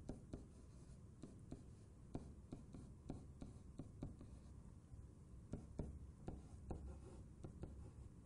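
Faint, irregular taps and light scratches of a stylus writing by hand, over a low steady hum.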